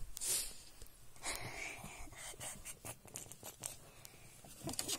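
Soft rustling and handling noises as plush toys and the camera are moved about, with scattered small clicks and two breathy hisses in the first second and a half.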